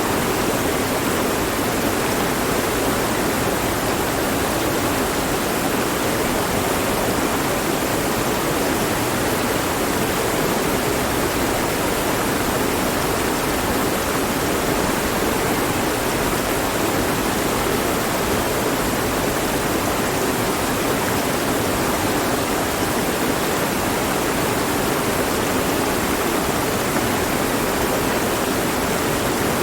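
Mountain stream flowing steadily over rocks, an even rushing of water without breaks or changes.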